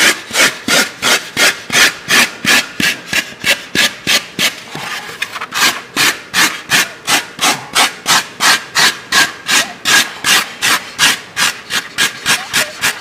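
Hand foam rasp scraping down a carving-foam fish body in fast, even back-and-forth strokes, about three to four a second, with a short break in the rhythm about halfway. It is the rough shaping of a walleye body, taking material off the edges.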